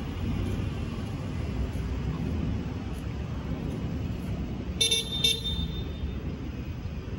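Steady low rumble of outdoor traffic, with two short vehicle-horn toots about half a second apart about five seconds in.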